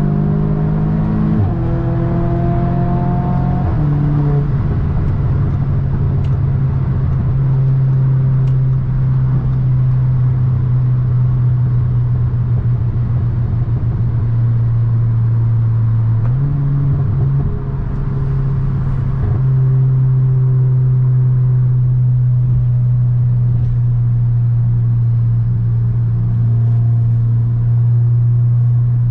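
2017 Audi S3's turbocharged four-cylinder engine and exhaust driving. The engine note shifts through a few steps in the first four seconds, then holds a steady drone, stepping up slightly about halfway through.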